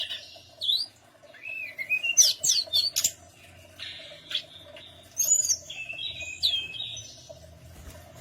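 Tledekan gunung songbird singing: bursts of quick chirps and whistled notes that slide up and down in pitch, with short pauses between phrases, over a faint steady hum.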